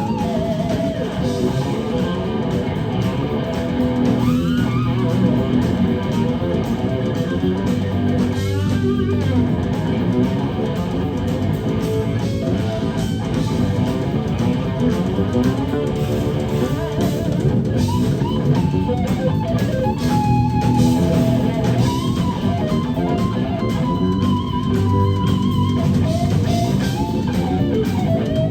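Live instrumental rock from a guitar-bass-drums trio: a lead electric guitar line with string bends and vibrato over bass guitar and drums.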